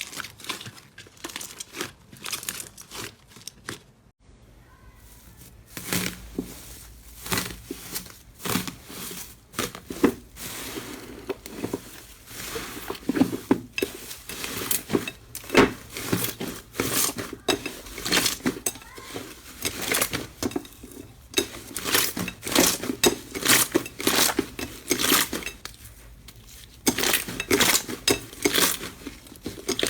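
Slime being squeezed and pressed by hand, making rapid, irregular crackling and popping clicks, with a short lull about four seconds in.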